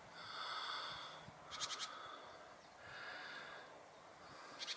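Faint, slow breathing close to the microphone, one soft breath about every two seconds, with a couple of short runs of light clicks.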